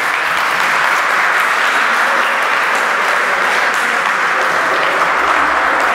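A crowd applauding in a large sports hall: steady, dense clapping.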